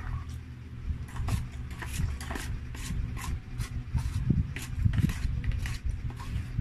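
Eating sounds: a plastic spoon scraping and tapping rice in a cardboard takeaway box, a run of short scrapes and clicks over a steady low hum.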